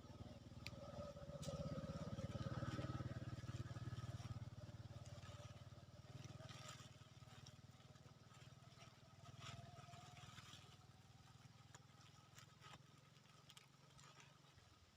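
A faint engine drone that swells about two seconds in and then slowly fades away, with a few light clicks.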